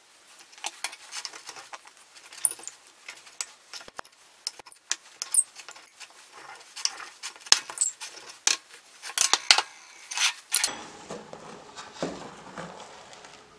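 A brittle crust of sublimed ammonium chloride crystals being broken and scraped off the inside of a glass bowl: many small, irregular crackles, scrapes and clicks of crystal on glass. Near the end the sound turns duller, with crystal pieces handled in a plastic tub.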